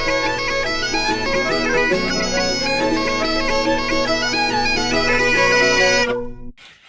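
Bagpipe music: a melody played over steady low drones, cutting off suddenly about six and a half seconds in.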